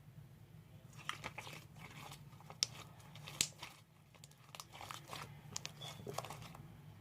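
Hands squishing and stretching homemade fluffy slime, giving irregular small sticky crackles and pops, over a steady low hum.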